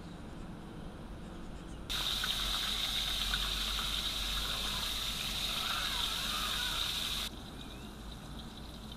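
Battered wild mushrooms deep-frying in hot oil in a wok, a loud steady sizzle that starts abruptly about two seconds in and cuts off about seven seconds in.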